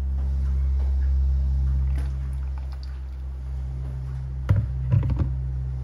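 A gooseneck kettle's thin stream of water pours into a paper-filtered Hario Switch coffee dripper over a steady low hum. The pour ends, and a few light knocks come about four and a half to five seconds in as the kettle is handled.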